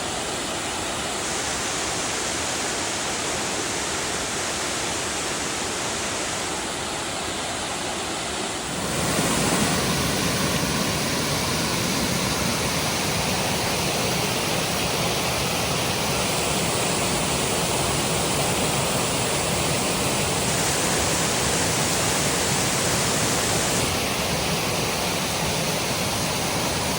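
A waterfall's steady rush of falling water, turning louder and fuller at about nine seconds in.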